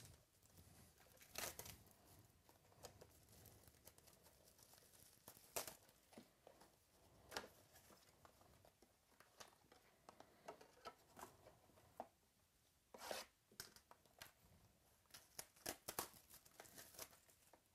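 Foil trading-card pack wrappers being torn open and crinkled. There are faint, scattered tears and rustles, with a few sharper crackles.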